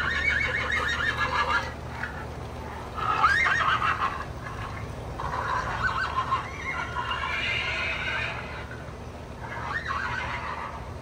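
Recorded horse whinnies from an LGB Wild West train set's sound effects: several neighs a few seconds apart over a low steady hum.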